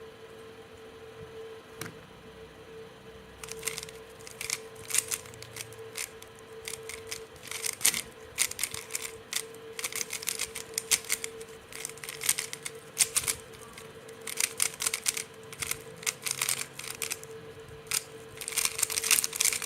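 Rubik's cube being turned fast in a speedsolve: rapid clattering clicks of the layers turning, in flurries with short pauses, starting about three and a half seconds in. A faint steady hum runs underneath.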